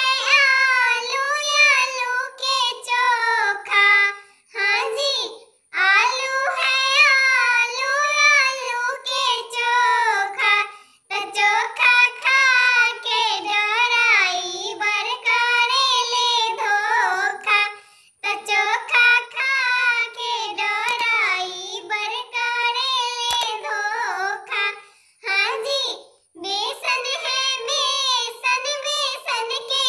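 A high-pitched voice sings a jhumar folk song unaccompanied, in phrases with wavering pitch and short breaths between them.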